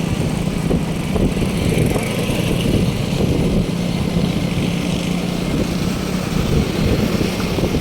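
A small motor running steadily, with a constant hum and a rushing noise of air; it cuts off suddenly at the end.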